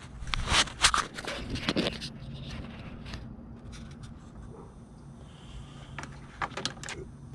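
Scraping and sharp clicks of hands working a plastic quick-connect heater hose fitting, prying up its green retaining clip. The clicks bunch in the first two seconds and come again a few times near the end.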